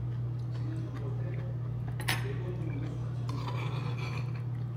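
Cutlery striking a bowl while eating: one sharp clink about two seconds in, then a few lighter ringing clinks a second later, over a steady low hum.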